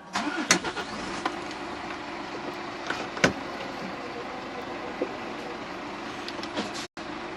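Lorry's diesel engine running steadily, heard from inside the cab, with a few sharp knocks and clicks over it, the loudest about half a second in and again about three seconds in.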